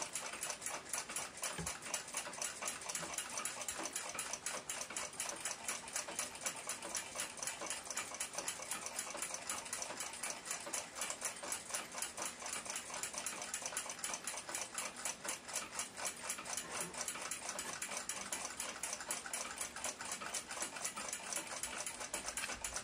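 A clock ticking rapidly and steadily, about five ticks a second.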